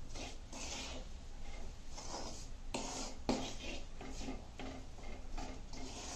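Spatula stirring and scraping dry-roasting grated coconut and semolina around an aluminium kadai: repeated scratchy strokes, about two a second, with the odd sharper click against the pan.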